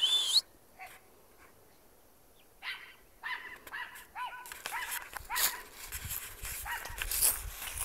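Small dog barking over and over in short, quick barks, heard faint and distant. It is alarm barking at a black trash bag that the dog takes for an intruder. There is one brief louder sound at the very start, and a scratchy rumbling noise joins in toward the end.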